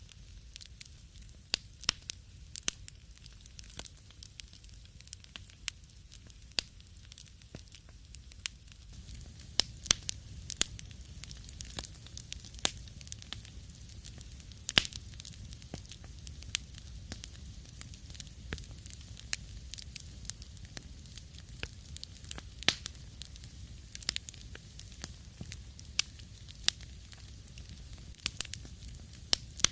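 Wood fire burning in a fireplace, with frequent sharp crackles and pops over a steady low rumble of flames. The pops come thicker and louder from about nine seconds in.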